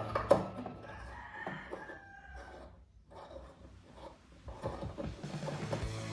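A rooster crowing once, one long call starting about a second in.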